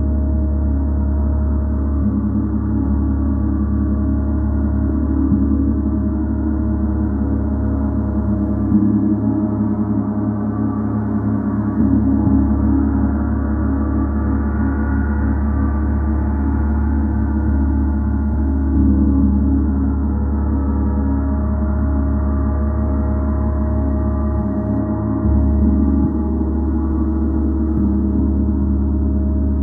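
Gong ringing continuously: a dense, sustained wash of many overlapping tones over a deep hum, swelling slightly every few seconds as it is struck softly again.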